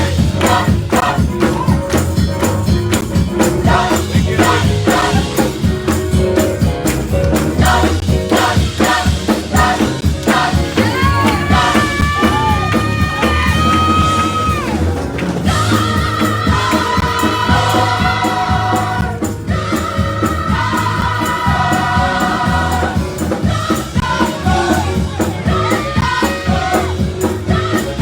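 Gospel-style church worship music: singing with a choir over a steady beat of drums and percussion. Long held sung notes come around the middle, some in harmony.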